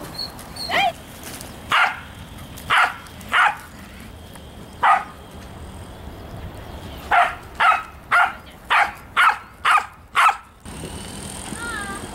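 A dog barking: a few single barks spaced a second or so apart, then a quick run of about seven barks near the end.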